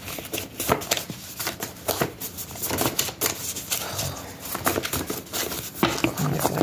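A deck of tarot cards being shuffled by hand: a steady, irregular run of quick soft clicks and slaps of card against card.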